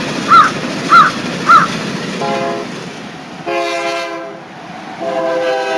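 Cartoon train horn sounding in separate blasts: a short one about two seconds in, a longer one a second later, and another from about five seconds in. Before it, four short squeaky chirps, each rising and falling in pitch, repeat about every half second.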